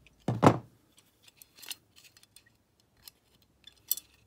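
A single thump about half a second in, as a tool is set down on the wooden workbench, then light metallic clicks of small carburetor parts being handled as the float and its pin come free of the Weber carburetor top.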